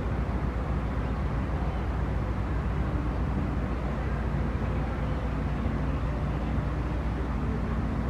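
Steady low outdoor background rumble with no distinct events, heaviest at the bass end.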